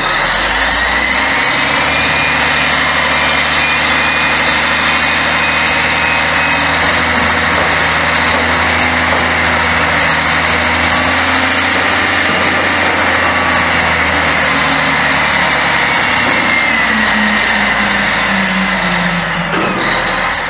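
Western Star 6900 off-road dump truck's diesel engine running loud and steady while the telescopic hoist cylinder raises the 40-ton dump body. The engine's pitch rises a little in the last few seconds. The sound starts and cuts off abruptly.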